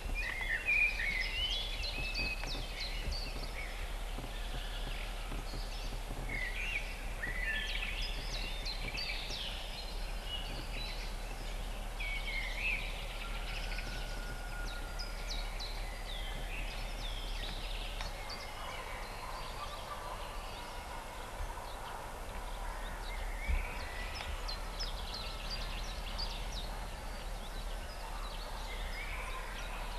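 Several small birds chirping and singing in a steady hiss of outdoor background noise, over a low hum that fades about two-thirds of the way through. A single short thump comes near the three-quarter mark.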